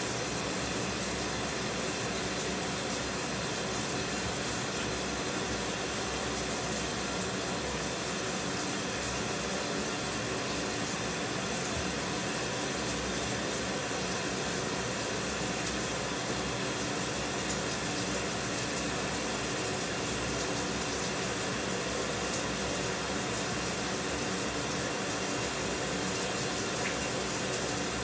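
Shower running steadily: an even hiss of spraying water that does not change.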